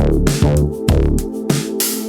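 Electronic background music with a steady drum-machine beat, about two hits a second, over a deep bass line.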